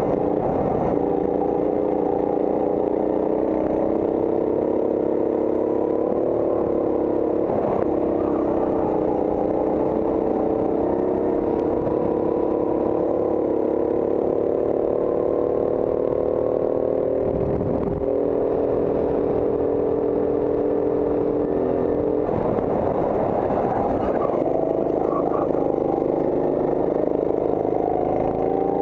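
Go-kart engine at racing speed, heard close up from the kart itself: a steady buzzing drone whose pitch climbs slowly on the straights. It drops a little past halfway and again a few seconds later as the kart slows for corners, then climbs again near the end.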